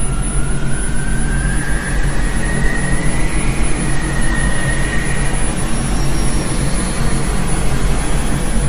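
Loud, steady rumbling drone with a low hum beneath it, and a thin whine that slowly rises in pitch over the first few seconds, holds, then stops about five seconds in.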